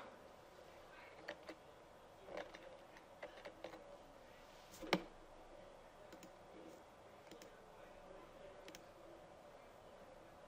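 Faint, irregular clicks from a computer mouse and keyboard, with one louder click about five seconds in.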